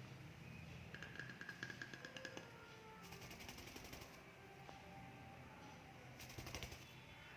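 A lovebird's beak clicking and nibbling, heard as faint bursts of rapid clicks: one about a second in, one around three seconds in and a short one near the end.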